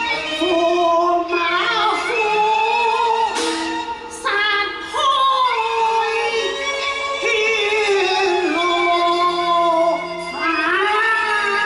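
A woman singing a Cantonese opera aria into a microphone, with pitch slides and held notes, over instrumental accompaniment; she pauses briefly about four seconds in and again near the end.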